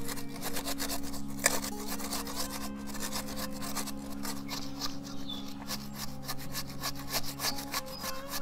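Peeled raw potatoes rubbed back and forth on a plastic hand grater, a rasping scrape of quick, even strokes, several a second, as they shred into fine strands. One sharper knock about a second and a half in.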